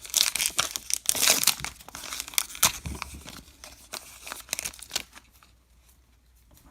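Foil baseball card pack wrapper being torn open and crinkled by hand. The crackling is busiest for the first three seconds and thins out until it stops about five seconds in.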